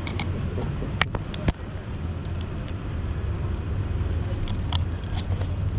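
Steady low rumble of city traffic, with two sharp clicks about a second in.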